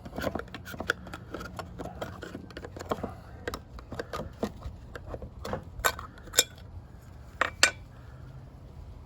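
Irregular clicks, taps and clinks of small hard objects being handled, with a few sharper knocks from about five and a half to eight seconds in.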